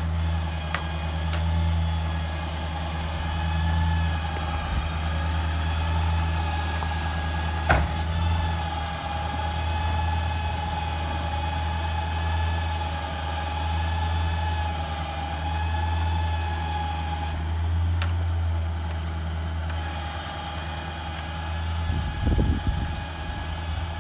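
The 8.1-litre Vortec V8 of a GMC C4500 bucket truck running steadily, with a steady high whine from the boom's hydraulics as the boom raises the bucket; the whine cuts out for about two seconds near the three-quarter mark and comes back. A few sharp clicks sound along the way, and irregular low thumps come in near the end.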